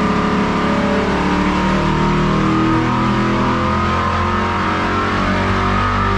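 V8 race engine running under load on an engine dynamometer, its revs climbing during a dyno pull toward about 5,800 RPM.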